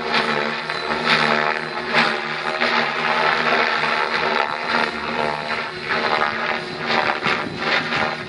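Mikado Logo 600 SX electric radio-controlled helicopter flying overhead: the steady whine of its motor and rotors, swelling and fading as it manoeuvres.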